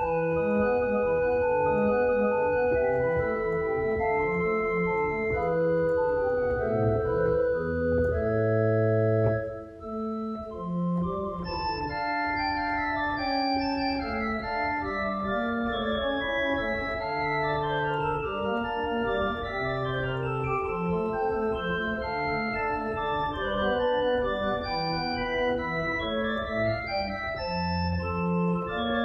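Organ playing a postlude after the dismissal. It begins with held chords, pauses briefly about nine seconds in, then moves into a livelier passage of quick-moving notes.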